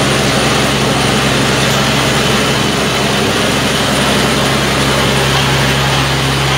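PDTHR-300 truck-mounted water well drilling rig's engine running steadily: a loud, even drone at constant speed with a broad hiss over it.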